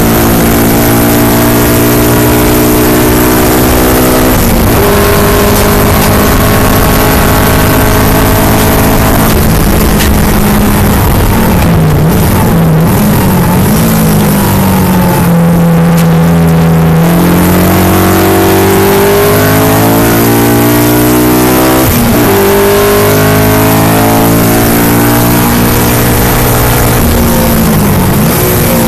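Inside the cabin of a 2007 Honda Civic Si race car at racing speed. The four-cylinder engine revs up hard through the gears with two quick upshifts. In the middle stretch the revs fall and waver under braking and downshifting, then climb again. Loud wind and road noise runs under it all.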